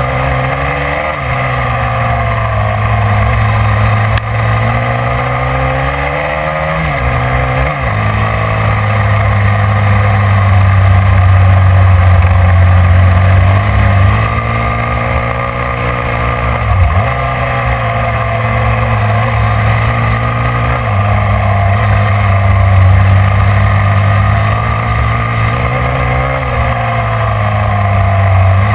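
A small vehicle's engine running hard at high, fairly steady revs, dipping briefly about three times as it eases off and then pulling back up, with wind rush over the mount.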